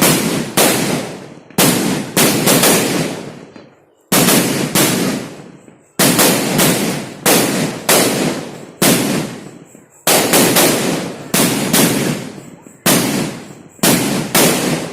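A string of triangular paper firecrackers going off: about two dozen loud, sharp bangs at uneven intervals, often two or three in quick succession. Each bang rings away over a second or so, with short lulls about 3.5 s and 5.5 s in.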